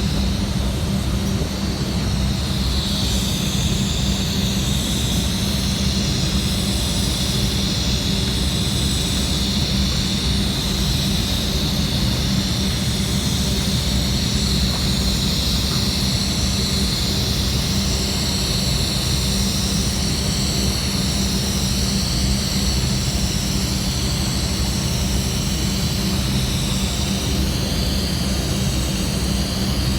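Steady machine drone with a constant low hum and a high whine above it, running unbroken and unchanging.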